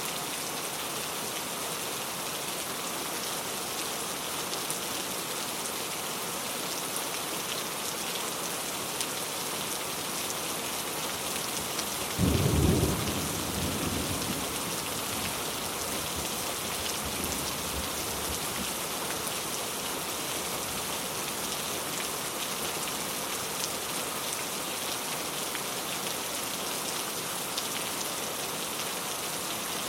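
Steady rain falling, an even hiss throughout. About twelve seconds in a single clap of thunder, the loudest moment, rumbles low and dies away over a few seconds.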